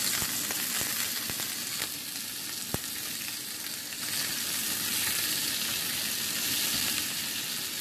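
Belly pork slices sizzling in a hot non-stick frying pan as they are turned over, with a few sharp clicks of the utensil against the pan in the first few seconds. The sizzle grows louder about halfway through, as the raw sides go down onto the hot pan.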